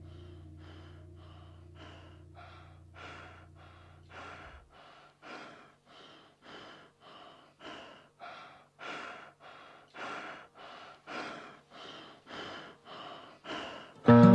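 Rhythmic breathing, short breaths about twice a second, growing louder, as part of a slowed song's intro. It plays over a low drone that fades out about four seconds in, and the music cuts in loudly with guitar at the very end.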